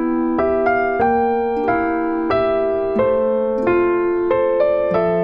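Background instrumental music: a slow keyboard melody of struck notes and held chords, about two notes a second.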